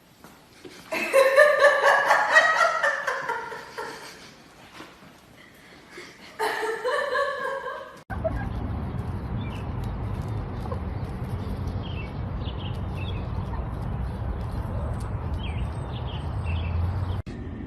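An animal's drawn-out, wavering calls, twice, then after a sudden cut a steady low rumble with faint high chirps.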